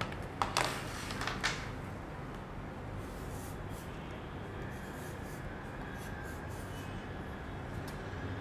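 Chalk tapping and scratching on a small handheld chalk slate as numbers are written on it: a few sharper taps in the first second and a half, then fainter, scattered strokes.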